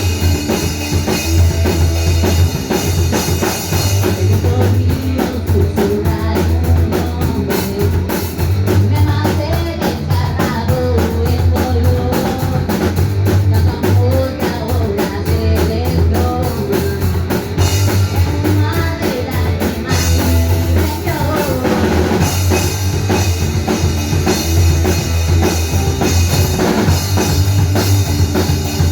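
A rock band playing live: drum kit, bass and electric guitar. Strong bass line under a busy drum beat. The cymbals drop back to a tight, ticking hi-hat a few seconds in and open up again later.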